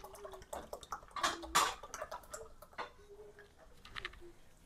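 Milk being poured into a measuring cup: a faint trickle with a few knocks about a second and a half in.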